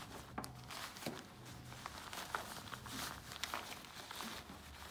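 Soft plastic crinkling and fabric rustling as a Salomon 1.5-litre soft hydration bladder is worked into the back pouch of a running vest, with scattered small clicks and scuffs of handling.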